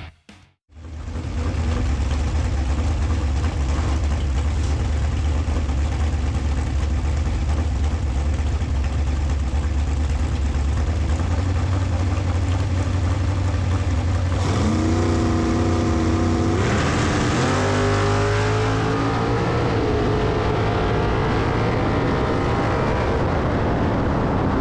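Dragster engine running with a steady low rumble, then accelerating hard about two-thirds of the way in: the pitch climbs, jumps up once about two seconds later, and keeps rising for a few seconds before levelling off.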